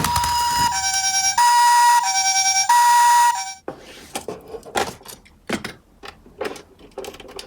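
Two-tone Japanese-style ambulance siren alternating between a high and a low note about every two-thirds of a second. It cuts off about three and a half seconds in.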